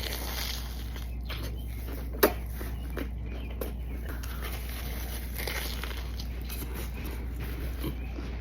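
Close-miked chewing of a burrito, wet mouth sounds with a few sharp crunches, the loudest about two seconds in, over a steady low hum.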